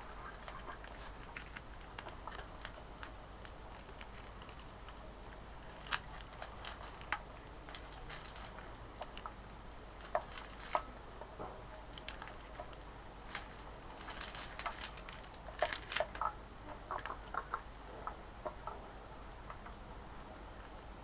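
Hens pecking pellet feed from a stainless steel bowl: irregular sharp taps of beaks on pellets and metal, with a quick flurry of taps partway through.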